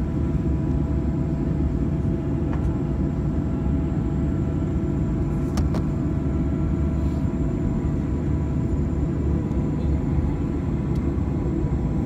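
Steady low rumble of a Boeing 737-800 heard from inside the cabin, its CFM56-7B jet engines and airflow running, with faint steady tones above it. A few faint clicks sound over it.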